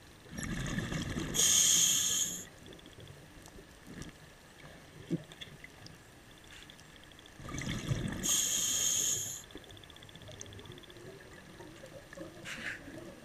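Scuba diver breathing through a regulator underwater, two breaths about seven seconds apart. Each breath is a low rush of bubbles followed by a loud hiss.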